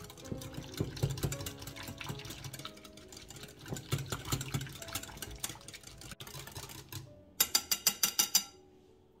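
A wire whisk beating a thick yogurt-and-mayonnaise sauce in a ceramic bowl: a rapid, uneven clatter of wires against the bowl, with soft background music. Near the end comes a quick run of about eight sharp clicks of the whisk against the bowl, then only the faint music.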